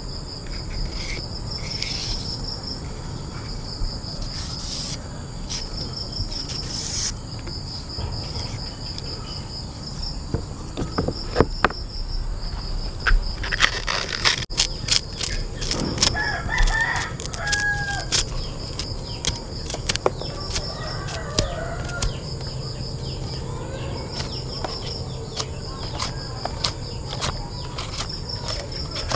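Crickets chirping in a steady high pulsing trill, with a burst of sharp clicks and knocks around the middle. A chicken calls several times in the second half.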